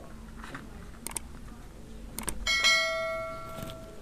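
A single bell-like metallic ring struck about two and a half seconds in, with several pitches that die away over about a second and a half, after a few faint clicks.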